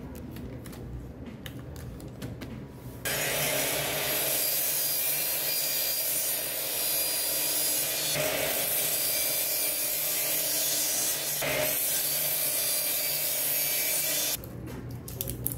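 A few light clicks of wooden chopsticks being laid out by hand. Then a power circular saw cuts through a tape-wrapped bundle of wooden chopsticks, a loud, even sawing noise that starts suddenly about three seconds in and stops sharply near the end.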